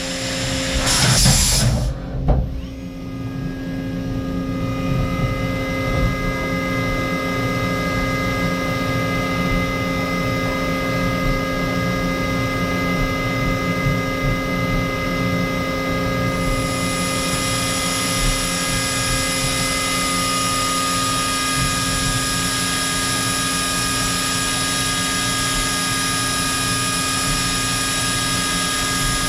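Makino A51 horizontal machining center running, a steady machine hum with several fixed whining tones. It opens with about two seconds of louder rushing, and about 16 s in a high hiss joins and holds.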